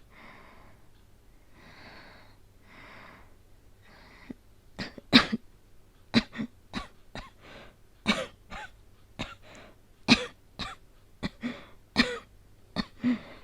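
A woman's coughing, performed as the cough of an asthmatic with a cold. A few slow, breathy breaths come first, then from about five seconds in a long run of sharp coughs in quick clusters, more than a dozen in all.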